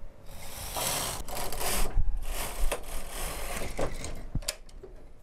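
Carriage of a single-bed knitting machine pushed across the needle bed to knit one row: a rasping slide lasting about three and a half seconds, followed by a few clicks.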